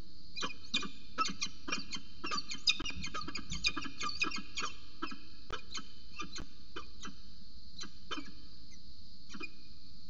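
Peregrine falcon calling at its nest box: a rapid run of short, sharp chipping calls, several a second, that thins out to a few scattered calls after about five seconds.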